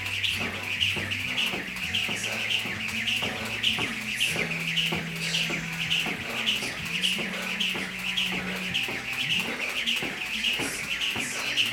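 Jump rope turning in a steady rhythm, each pass giving a short high swish or chirp and a light slap, about twice a second. Background music with a held bass line plays underneath.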